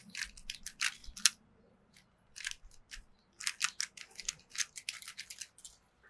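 Plastic 3x3 speed cube being turned quickly with finger tricks: rapid clicking and clacking as the top layer is flicked through U2 double turns, with a brief pause about a second and a half in.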